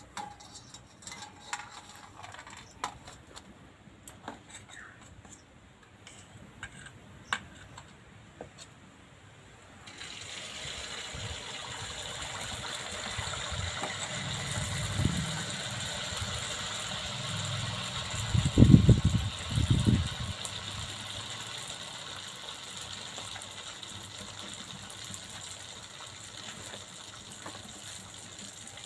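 A palm-fruit fritter (tal fuluri) frying in hot oil in a karahi: after a few light clinks, a steady sizzle starts about ten seconds in and carries on, with a few low thumps a little past the middle.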